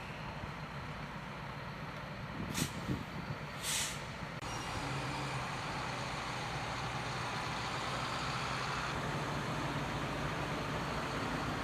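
Heavy truck engines running, with two short air-brake hisses about two and a half and three and a half seconds in; a nearer engine grows louder and runs steadily from about four and a half seconds in.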